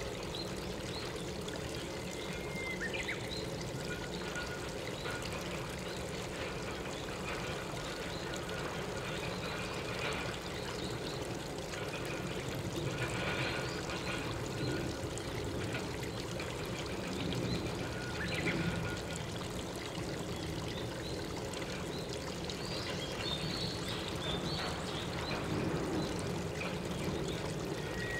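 Steady rush of running water, with a few faint, short whistled bird calls scattered through it.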